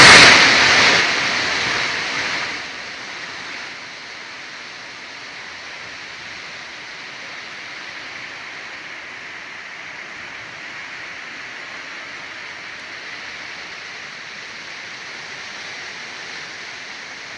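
Rushing water: it starts with a sudden loud surge that dies down over the first few seconds, then carries on as a steady hiss.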